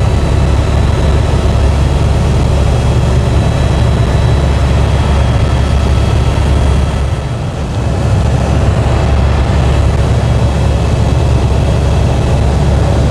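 Helicopter running steadily, heard from inside the cabin: a loud low drone with a high turbine whine held over it, easing off briefly about seven seconds in.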